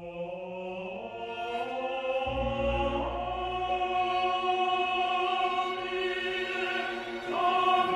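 Slow, solemn choral music: voices sing long held notes over orchestral strings. The pitch steps up about a second in, again about three seconds in and again near the end, and a low drone comes in about two seconds in.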